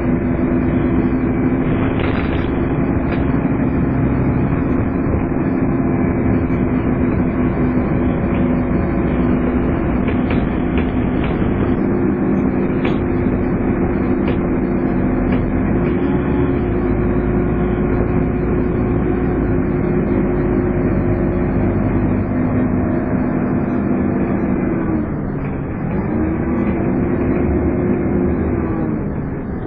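Scania N230UD double-decker bus under way, its drivetrain giving the steady whine bus enthusiasts call "hoovering", with a few short rattles. About 25 s in the whine glides down in pitch and the sound eases, rises again briefly, then falls away near the end.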